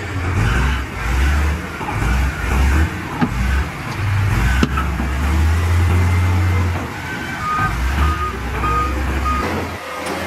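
Heavy diesel earthmoving machinery running under load, the engine note swelling and easing, with a couple of metal clanks. From about seven seconds in, a reverse alarm starts beeping about twice a second.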